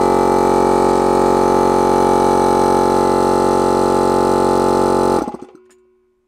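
Patriot single-phase piston air compressor running with a loud, steady hum, its electric motor freshly repaired after a short between the run and start windings. It cuts off abruptly about five seconds in, leaving a faint tone that dies away over the next second as the motor runs down.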